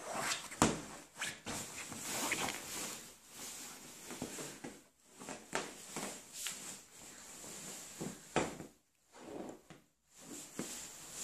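Husky puppy pawing and digging at a fabric dog bed: irregular scratching and rustling of the cushion, with soft knocks and scrapes.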